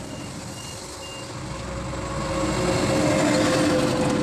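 A heavy truck passing on the road, its engine note swelling to loudest about three seconds in. Two short high beeps come near the start.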